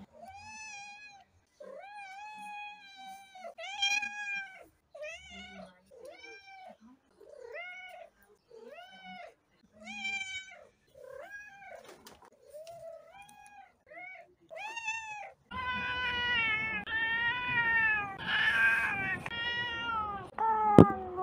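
Domestic cats meowing over and over: well over a dozen short meows in quick succession. About fifteen seconds in, after a cut, longer and lower-pitched meows follow over a steady background hiss.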